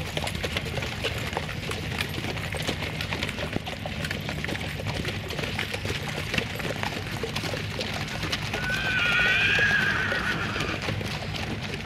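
Hooves of a column of horses, heavy drum horses among them, clip-clopping at a walk on wet tarmac. About nine seconds in, one horse whinnies in a wavering call lasting about two seconds, the loudest sound here.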